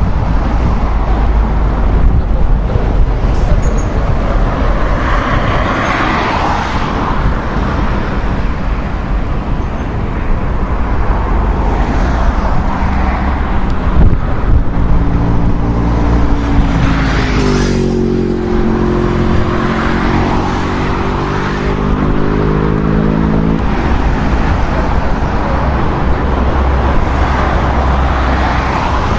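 Jet noise from an Airbus A340-500's four Rolls-Royce Trent 500 engines as it lands, over a heavy wind rumble on the microphone. About halfway through, a humming engine note comes in for several seconds, dips and bends in pitch, then stops.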